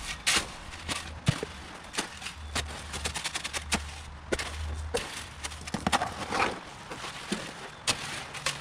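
Flat shovel mixing wet concrete in a plastic mixing tub: irregular scrapes, slaps and knocks as the blade drags through the mix and hits the tub.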